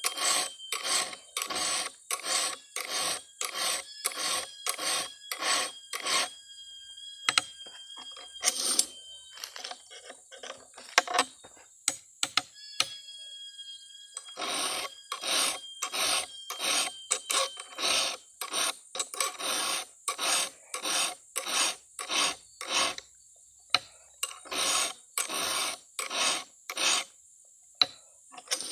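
Round file rasping across the cutters of a Stihl 070 chainsaw chain, about two even strokes a second. The filing stops for several seconds in the middle, with only a few light clicks, then resumes.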